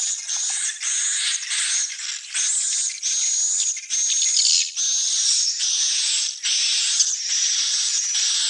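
Swiftlets chirping: a steady run of short, high-pitched, buzzy twittering calls, about two a second.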